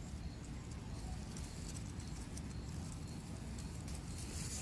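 Tomato plant foliage rustling with scattered light crackles as cherry tomatoes are picked by hand, over a steady low rumble on the microphone.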